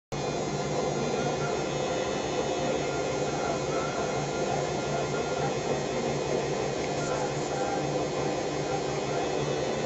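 Washing machine running, a steady motor hum with no breaks.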